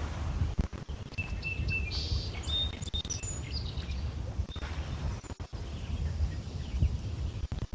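Lake water lapping against shoreline stones with a steady low rumble. Small birds chirp a few short, high calls in the first few seconds.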